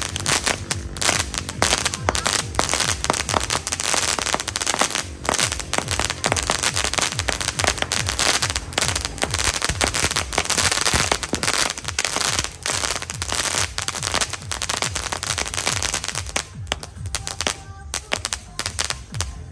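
A 100-shot Harlequin fireworks cake firing in rapid succession: a dense, nearly continuous stream of shots and crackling star bursts, thinning out in the last couple of seconds.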